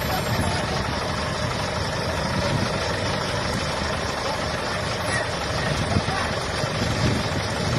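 Heavy engine running steadily at idle, with voices in the background.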